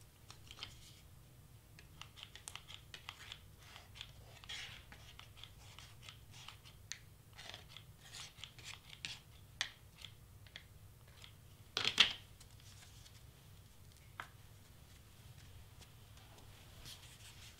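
Hands handling cardstock and paper on a cutting mat: a run of small, irregular rustles, scrapes and clicks, with one louder knock about twelve seconds in.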